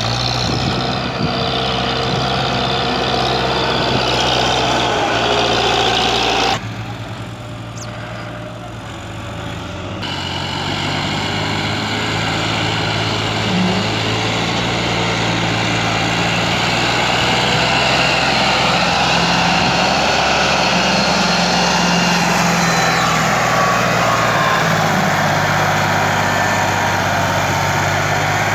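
Tractor diesel engines running hard under load across several edited shots, with an abrupt drop in loudness about six seconds in. Near the end a small Massey Ferguson tractor strains to haul a heavily loaded trolley, its front wheels lifting.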